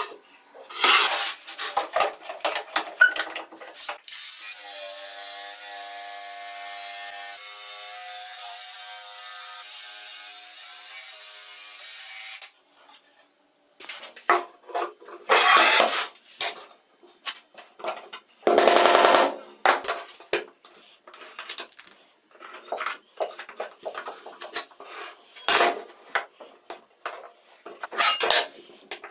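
Plywood being worked by hand and machine: a few seconds of the board handled and scraped, then a power saw running steadily for about eight seconds as the shape is cut out, stopping suddenly. After a short pause come many short rubbing and scraping strokes as the cut-out piece is smoothed and handled.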